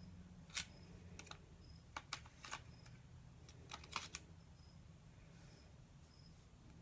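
A few light, scattered clicks and taps, one close pair about two seconds in, over quiet room tone.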